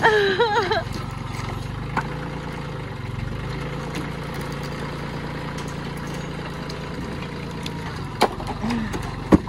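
Compact tractor engine running steadily while it carries a shed panel on its front loader, with two sharp knocks near the end as the panel comes down.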